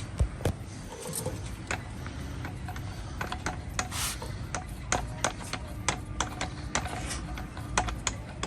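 Side handle being screwed by hand into an angle grinder's gear housing: irregular small clicks and rubbing of the handle's thread and the tool, with a short rustle about four seconds in.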